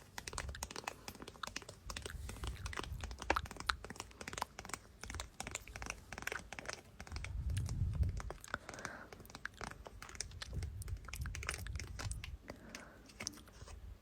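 Close-miked ASMR trigger sounds: a dense, irregular run of quick clicks and crinkly taps, like fingertips and nails tapping and scratching at the microphone, over a low rumble.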